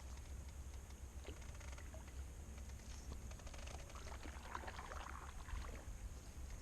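Faint splashing of a canoe paddle in shallow water, clearest about four to five seconds in, over a steady low rumble.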